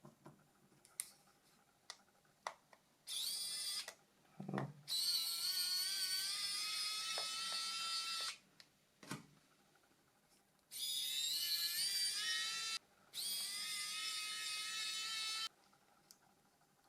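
A small, high-pitched electric tool motor runs in four spells of one to three seconds, each rising in pitch as it spins up and then holding steady before cutting off, with a few sharp clicks between the spells.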